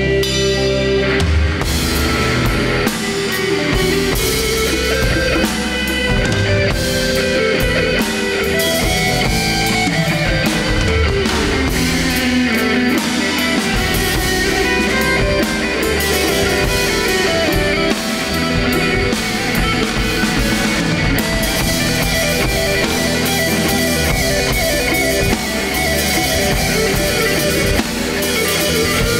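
Live rock band playing an instrumental break, an electric guitar carrying the lead over drum kit and bass.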